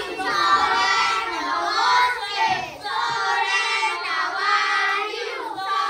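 A group of children singing together, several young voices overlapping.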